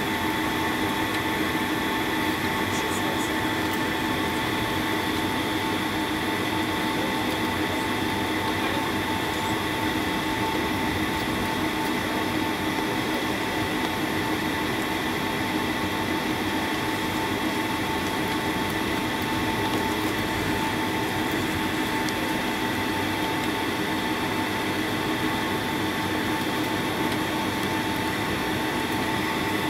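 Jet airliner's engines running at taxi power, heard inside the cabin: a steady whine of several constant tones over an even hiss, with no change in pitch or level.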